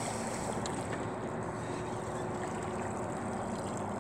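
Steady wind and water noise with a faint low hum underneath.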